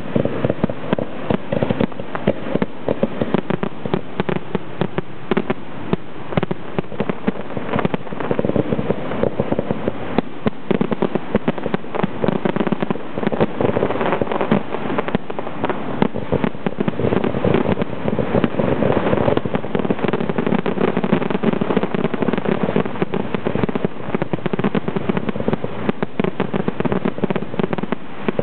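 Zambelli display fireworks: aerial shells bursting in a rapid, unbroken barrage, many bangs overlapping with no pause between them.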